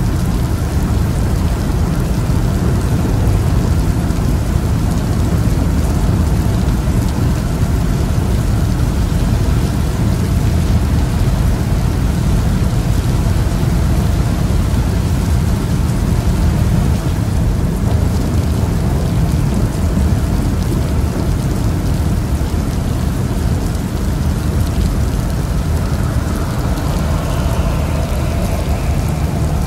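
Steady low rumble of a car driving at highway speed, heard inside the cabin: road and tyre noise. A faint rising whine comes in near the end.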